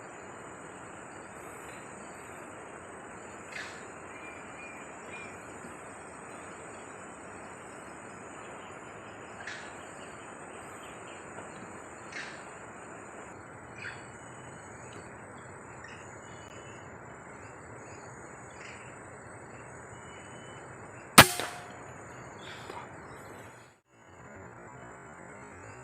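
Steady insect drone over a hiss of outdoor ambience, with a few faint clicks and chirps. About 21 seconds in, a single sharp crack from a .177-calibre PCP air rifle being fired, much louder than anything else, with a couple of small knocks just after.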